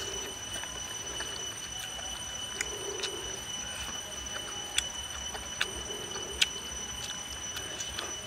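Someone eating soup with wooden chopsticks from a coconut-shell bowl: soft mouth sounds of eating, with sharp clicks of the chopsticks against the bowl scattered through. A steady high whine runs underneath.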